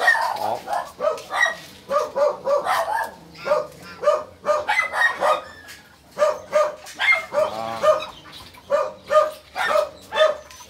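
A dog barking over and over, short sharp barks in quick runs of several at a time.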